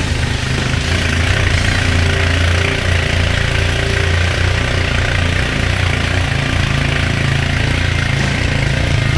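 ATV engine running steadily under load while the quad pushes through fast, churning water inside a concrete culvert, with the constant splashing and rushing of the water over the engine hum.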